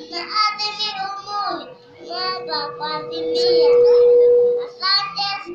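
A young boy preaching in Swahili into a handheld microphone, his voice amplified. A steady single tone runs under his voice and swells loudly around four seconds in, then dies away.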